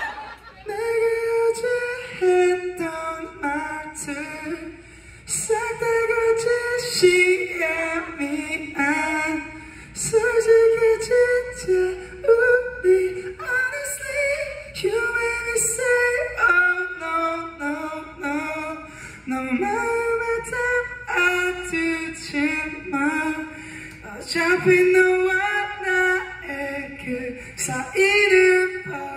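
A man singing a cappella into a microphone: one voice carrying a melody in phrases with short breaks, with no instruments behind it.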